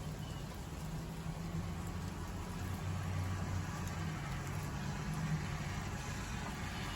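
Steady rain, with the low hum of a vehicle engine running underneath it; the hiss grows a little louder near the end.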